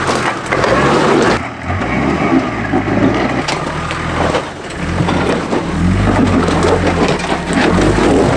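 Off-road 4WD's engine working under load on a rocky climb, the revs swelling and easing, with knocks and crunches from tyres and underbody on rock.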